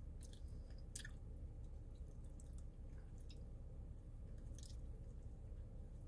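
Close-up chewing: wet, squishy mouth sounds with several short crackles scattered through, over a steady low hum.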